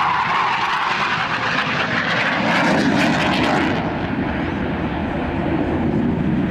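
A Blue Angels F/A-18 Hornet's twin jet engines making a loud noise as it makes a low pass. The high hiss falls away about four seconds in, leaving a lower rumble as the jet flies off.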